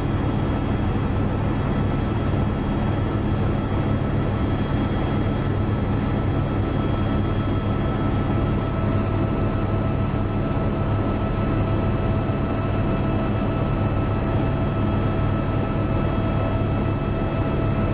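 Steady drone of an aircraft engine, even and unbroken, with a deep hum and a few constant whining tones over it.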